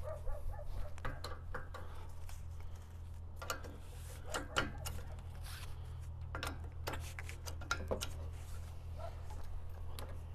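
Metallic clicks and knocks of hydraulic hose quick-couplers being handled and pushed into a tractor's rear hydraulic valve block. The clicks come irregularly, the sharpest about four and a half seconds in and between about six and a half and eight seconds in. A steady low hum runs underneath.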